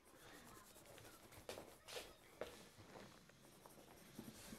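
Faint scratching of a pencil shading on paper, in several short strokes.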